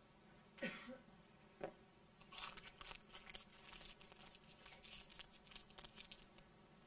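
Paper crinkling and crackling rapidly and irregularly as it is rolled and folded by hand into a piping cone, through the second half. It is preceded by two short scrapes of a spoon against a bowl in the first two seconds.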